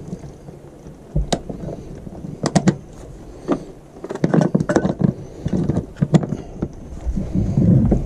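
Handling noises as an electric kettle is got ready to be filled: scattered clicks, knocks and light clatter, thickest from about four to six seconds in.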